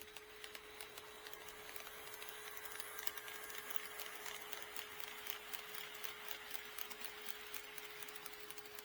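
HO-scale model train running past, with its wheels clicking rapidly over the track joints and a light whir from its motor. It grows louder over the first few seconds and eases off near the end, over a steady hum.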